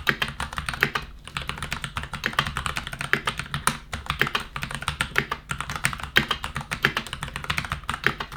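Typing on a Keychron K10 Pro mechanical keyboard with its factory switches: rapid, dense keystrokes with a few short pauses.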